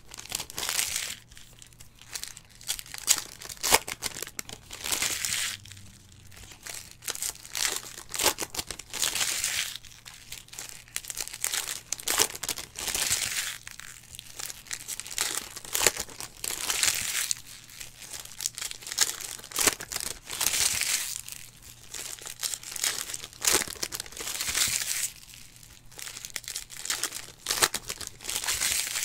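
Foil wrappers of Donruss football card packs crinkling and tearing as the packs are ripped open, in repeated bursts every second or two, with sharp clicks as the cards are handled and flipped through.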